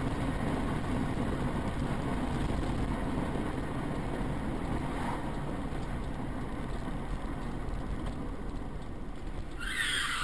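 A car driving, its engine and tyre noise heard from inside the cabin as a steady low hum. A brighter, louder rushing noise comes in near the end.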